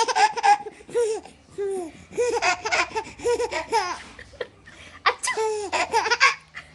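Baby laughing in repeated high-pitched giggling bursts, several runs of laughter with short pauses between.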